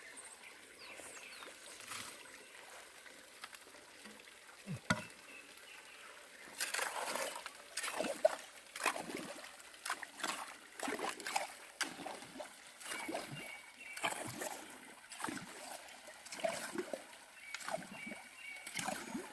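Hands scooping and sloshing in a shallow pit of muddy water as stones and mud are dug out. The splashes are faint at first, then come in quick, irregular runs from about a third of the way in, with a single knock shortly before.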